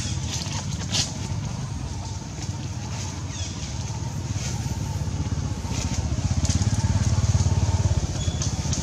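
A motor vehicle's engine running with a rapid low throb, growing louder from about six seconds in.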